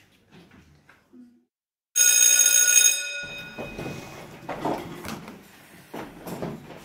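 A school bell rings loudly for about a second and stops abruptly, then the classroom stirs: chairs and desks scrape and knock as students get up, with voices.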